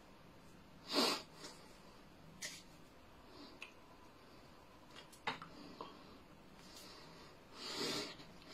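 A man's short, forceful breaths puffed out while he signs: a few brief puffs, the loudest about a second in and a longer one near the end, with a brief click about midway.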